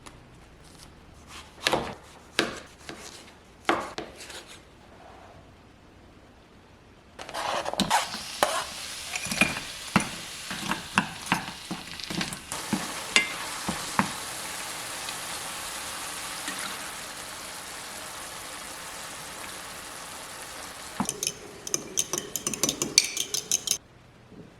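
A few knocks of utensils, then food for a tomato and egg stir-fry starts sizzling suddenly in a hot frying pan and keeps on steadily while a utensil stirs and scrapes against the pan with many clicks. Near the end the stirring quickens into rapid clattering before the sound cuts off suddenly.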